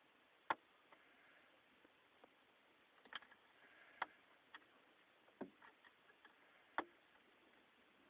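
Near silence broken by about five sharp clicks, spaced irregularly a second or more apart, with a few fainter ticks between them: button presses on a Kodak LCD screen while its menus are being worked.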